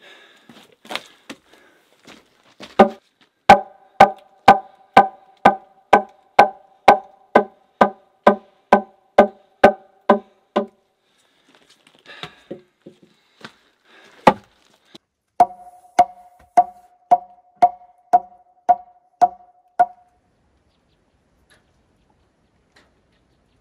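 Hammer blows on a log wall, about two a second, each strike ringing with a clear tone. A long run of blows is followed, after a short pause and a single strike, by a shorter run.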